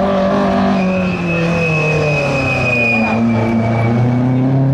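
Peugeot 205 rally car's engine revving hard while it manoeuvres around a tight tyre-marked course, its pitch sagging and climbing again, with its tyres squealing for a couple of seconds about a second in.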